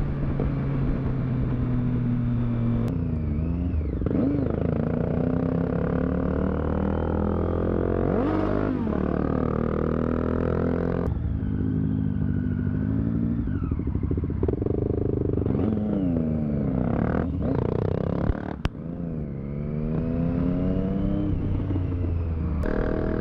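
Triumph Street Triple 675's inline-three engine running under way, its pitch climbing and falling as it pulls through the gears, with sudden breaks at about five gear changes, over wind noise.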